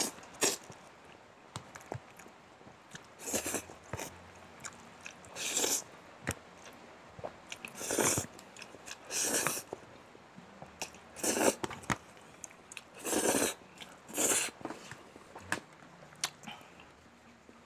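Close-up mouth sounds of a man eating Jolly Spaghetti: a short, hissing slurp of noodles every second or two, about eight in all, with wet chewing between.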